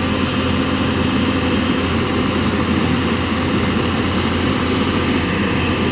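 Heavy diesel engine of earthmoving machinery running steadily with an even, unbroken drone.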